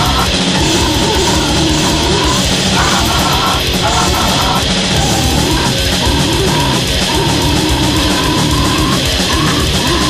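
Goregrind music: a loud, dense wall of distorted guitar and drums that never lets up.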